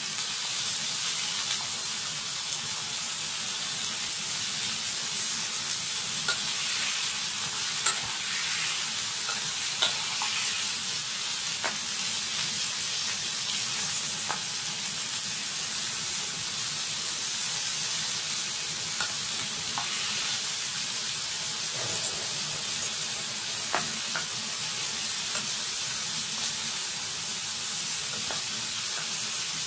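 Bottle gourd strips sizzling steadily in a frying pan, with a few sharp clicks scattered through the sizzle.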